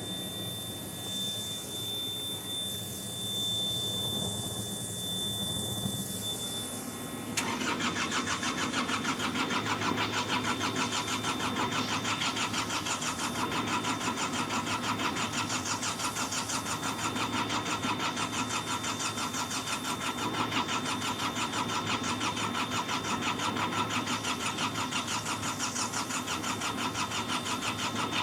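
Hitachi EX55UR excavator's diesel engine being cranked by its starter in freezing cold, turning over in a steady rhythmic churn for about twenty seconds without catching. Before the starter engages, about seven seconds in, a steady high-pitched tone sounds over a low hum.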